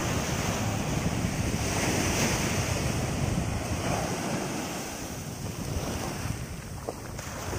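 Sea surf breaking and washing up a sandy shore, a steady rushing wash that swells and then slowly eases, with wind buffeting the microphone.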